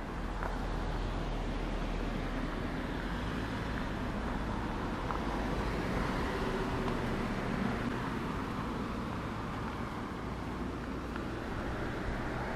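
Steady roadside background noise: a low, even rumble of road traffic.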